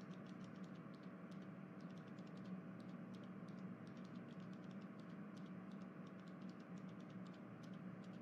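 Faint, irregular clicking, many quick ticks at uneven intervals, over a steady low hum.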